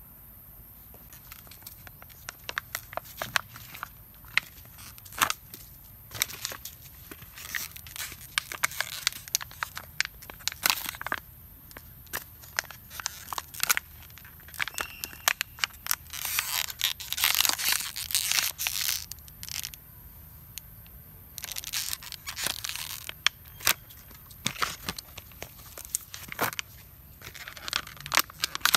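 Thin plastic water bottle crinkling and crackling in irregular bursts as a monkey grips and tugs at it, loudest about two thirds of the way through.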